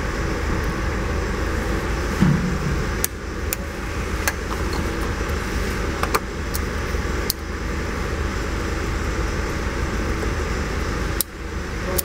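Steady low background hum with a handful of sharp plastic clicks as a Tesla Model 3 coolant hose and its quick-connect clips are handled and pushed onto their fittings.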